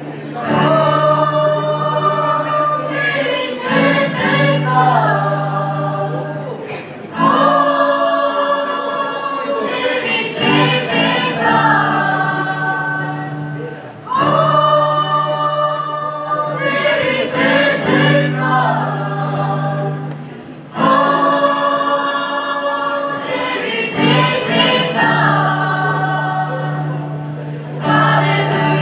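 Church choir singing a gospel song in parts, in long held phrases that break briefly about every seven seconds.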